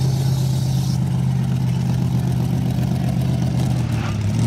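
Off-road racing buggy's engine held at steady high revs as it drives across the dirt course, with a hiss over the first second. Near the end the engine pitch rises briefly and drops.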